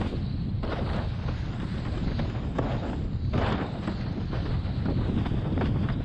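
Wind buffeting an action camera's microphone in a steady low rumble, over the hiss and splash of a windsurf board skimming across choppy sea, with bursts of spray coming and going every second or so.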